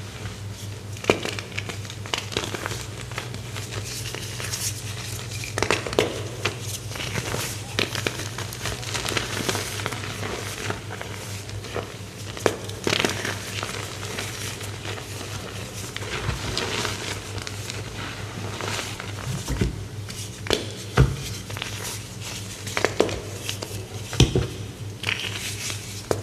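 Crisp, crumbly material being crushed and broken apart: irregular crunches and crackles, some sharper snaps among them, over a faint steady low hum.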